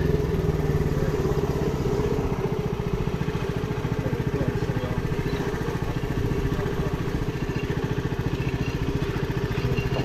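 A small engine running steadily at an even speed, with a rapid, regular firing pulse.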